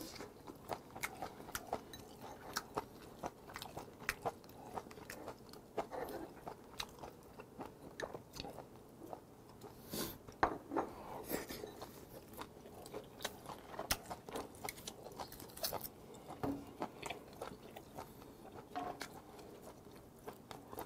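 Close-miked chewing and crunching of a mouthful of grilled pork belly, pen shell adductor and aged kimchi, with many short irregular clicks and crunches and a louder burst of crunching about ten seconds in.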